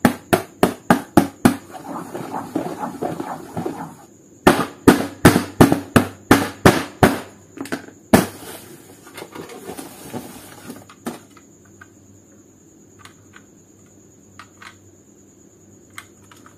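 Runs of sharp knocks, a hard object striking a flat surface about four to five times a second. One run comes at the start and a second comes about 4.5 seconds in. Single knocks follow near 8 and 11 seconds, then a few faint ticks.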